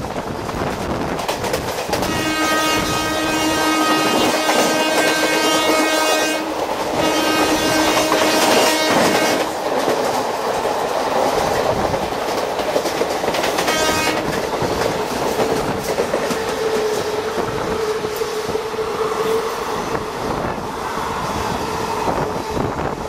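Train horn sounding two long blasts back to back, then a short toot a few seconds later, over the steady rumble and wheel clatter of passenger coaches running alongside on the next track.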